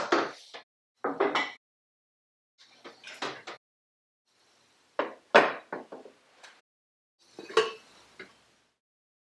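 Dishes and cutlery clinking and knocking on a table as it is laid and food is served: five short clusters of clatter about two seconds apart, the loudest a little past the middle.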